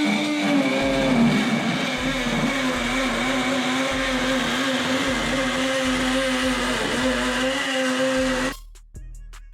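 A power tool motor running hard and steadily, its whine wavering slightly as the load changes, and stopping abruptly near the end. Background music with a steady bass beat plays underneath.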